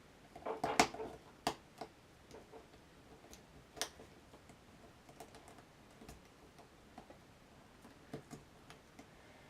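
Scattered small clicks and taps of hands working card and a metal brad, spreading the brad's prongs to fasten it, with the sharpest clicks about a second in and near four seconds.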